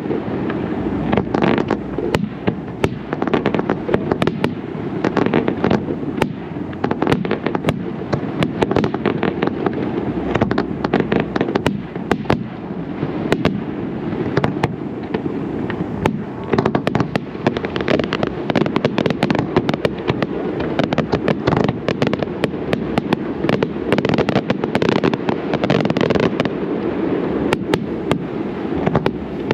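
Aerial fireworks display with shells bursting in rapid, dense succession, several bangs a second, over a continuous low wash of sound.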